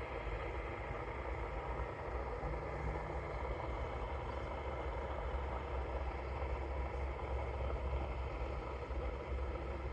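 Steady low drone of a light aircraft's engine in flight, heard faintly between radio calls.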